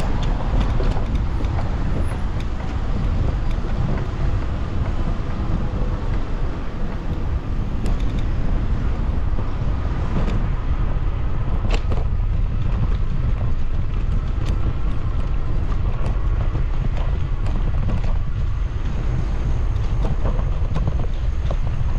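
Wind rushing over the microphone of a camera on a moving bicycle, over the steady rumble of the bike's tyres on paving and cobbles, with a few sharp clicks and rattles.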